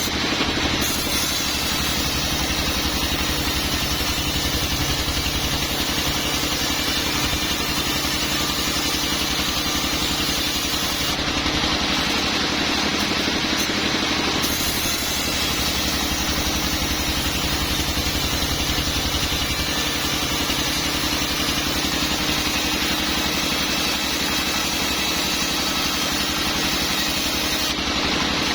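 Sawmill machinery running steadily, an engine note that holds even throughout.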